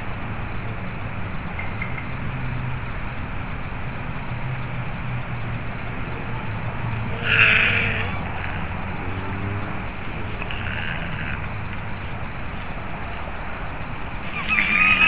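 Crickets chirring steadily in a dense, high-pitched night chorus. A short burst of noise comes about halfway through. Near the end a high, wavering whining call begins, from the Japanese raccoon dogs.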